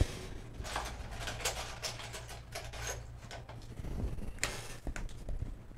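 A laptop being handled and slid across a work mat: a sharp click at the start, a run of light clicks and rubbing, and a louder knock about four and a half seconds in, over a low steady hum.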